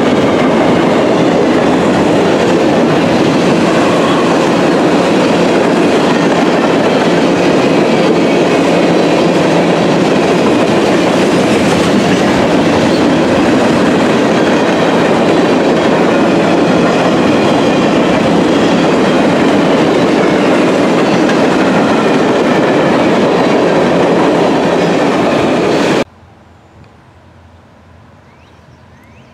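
Freight cars of a CSX train rolling past close by: a loud, steady rumble and clatter of steel wheels on rail, with faint thin squealing tones above it. About 26 s in, the sound cuts off suddenly to a quiet outdoor background as the scene changes to a distant approaching train.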